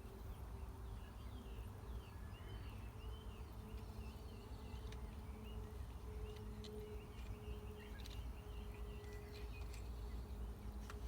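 Faint outdoor background: a bird twittering and warbling over a steady low hum, with a few brief soft clicks.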